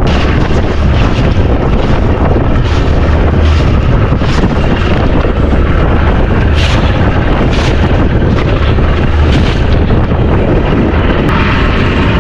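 Strong wind buffeting the microphone on a small open fishing boat in a 30-knot blow: a loud, steady rumble with brief hissy bursts every second or two.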